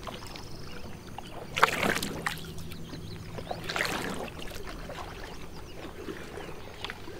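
Single-bladed paddle dipping and pulling through still water beside a small wooden canoe, with swishes and drips; the two loudest strokes come about a second and a half in and near four seconds in.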